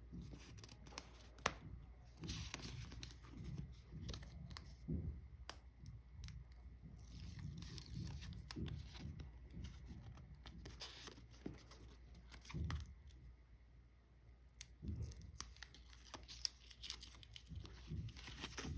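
Packaging being handled by hand: irregular tearing and crinkling, with scattered light clicks and soft knocks.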